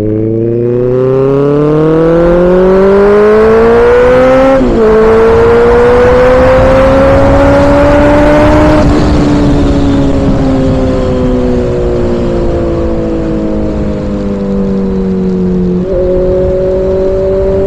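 Honda CBR motorcycle engine heard from the saddle, accelerating hard with its pitch climbing, broken by quick upshifts about four and a half and nine seconds in; the engine then settles and its pitch sinks slowly as the bike eases off, with another shift near the end. Wind rush runs under it throughout.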